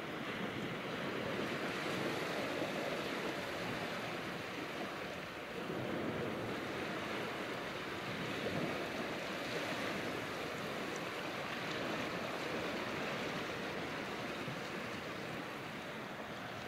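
Gentle sea waves washing over a rocky shore, a steady surf wash that swells and eases a little every few seconds.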